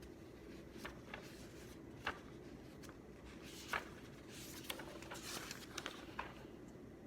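Quiet desk sounds of studying: a few light taps and clicks, and paper or pages rustling for about a second past the middle, over a steady low room hum.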